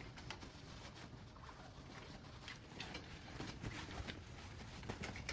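Faint handling noise: scattered, irregular light clicks and rustles as a power block and its cord are fed down through the leg of an animatronic figure.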